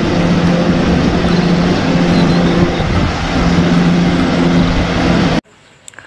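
Wheel loader fitted with a snow plow, its diesel engine running steadily under load as the plow pushes through deep snow, a loud constant drone over heavy noise. It cuts off suddenly about five and a half seconds in.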